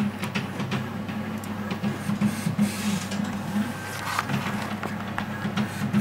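Stepper motor of a 3D-printed, belt-driven ventilator running, a steady low whir that wavers in pitch and level, with a few short clicks over it.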